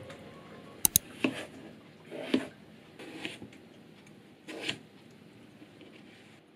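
Kitchen knife cutting through a peeled potato onto a cutting board: two sharp clicks about a second in, then four separate cuts roughly a second apart.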